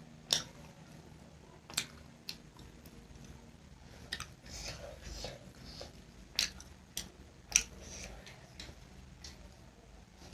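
A person chewing and eating close to the microphone, with several sharp clicks and smacks scattered through.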